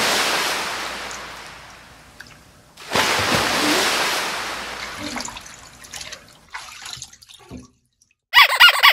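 Bathwater splashing and sloshing in a filled bathtub: two big splashes, each fading over about two seconds, then smaller sloshes. Near the end comes a brief, high, rapidly warbling giggle-like sound, louder than the splashes.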